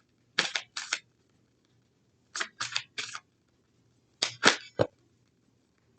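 Tarot cards being handled: short, sharp papery snaps and slaps in three clusters, two strokes then three then three.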